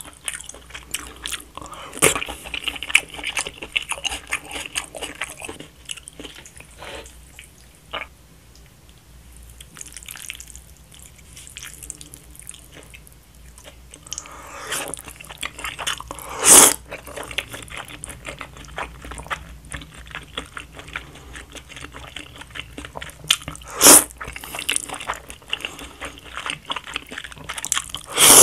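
Close-miked eating of thick wheat noodles in black bean sauce: constant wet chewing and lip-smacking, with several short, loud slurps of noodles, the loudest about 16, 24 and 28 seconds in.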